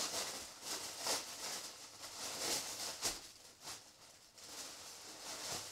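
Tissue paper rustling and crinkling in short irregular bursts as a hand rummages in a box, with one light knock about three seconds in.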